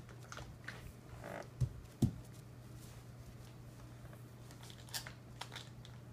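Faint scattered taps and rustles of a small child dancing on a wooden floor, with a short falling squeak about two seconds in, over a steady low hum.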